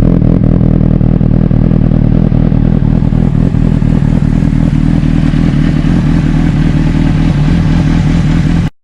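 Honda CBR600RR inline-four engine running at a steady speed through a Leo Vince SBK aftermarket muffler, cutting off abruptly near the end.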